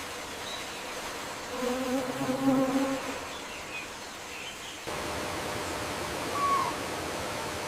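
A flying insect buzzes close by for about a second and a half, starting about a second and a half in, over a steady outdoor hiss with a few faint bird chirps. The background hiss steps up suddenly about five seconds in.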